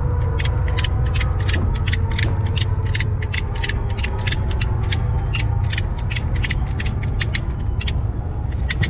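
Hand ratchet wrench clicking in quick, even strokes, about three to four clicks a second, as it works a bolt, over a steady low rumble.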